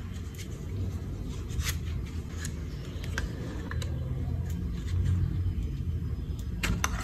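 Metal palette knife prying a 3D-printed plastic mold off a cast cement pot: scattered sharp clicks and scrapes as the blade works along the seam, with two quick clicks near the end. A steady low rumble sits underneath.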